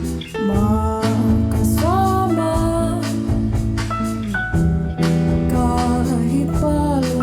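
A song: a lead voice sings a melody over instrumental backing with held bass notes and regular percussive hits.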